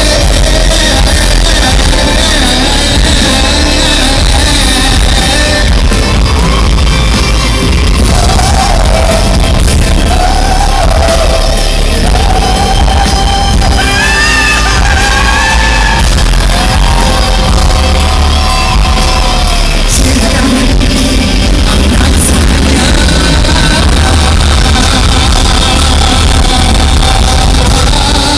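Live pop concert: a male singer sings into a microphone over loud amplified backing music with a heavy bass. It is recorded from the audience in a large hall.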